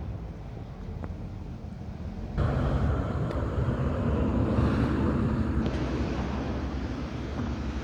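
Outdoor ambience recorded while walking: a steady low rumble that jumps louder about two and a half seconds in.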